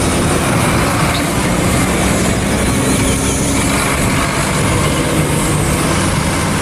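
Concrete mixer truck's diesel engine running steadily as the truck drives slowly past, a continuous low engine drone with road noise.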